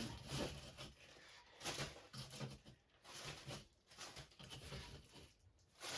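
Potatoes being handled and dropped into a bag: a scattering of soft, irregular knocks and rustles.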